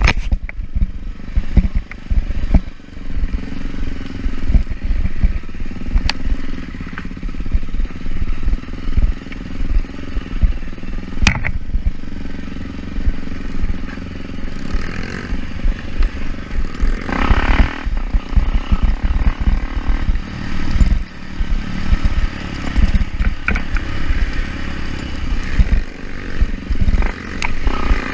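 Off-road motorcycle engine running steadily through a ride, under frequent irregular low thumps and knocks, with a louder stretch about two-thirds of the way in.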